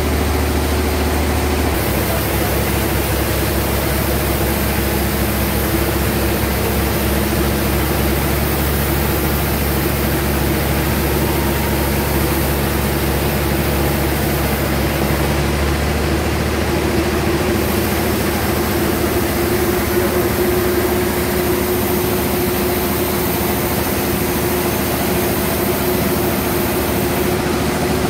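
Sawmill bandsaw running with a steady machine drone, a high hiss coming in a couple of seconds in, dropping out briefly midway and again near the end.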